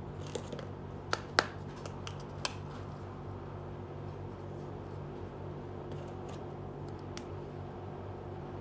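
Small plastic toy pieces clicking and tapping as they are handled and set down: a few sharp clicks in the first couple of seconds, the loudest about one and a half seconds in, then a few faint taps later, over a steady low hum.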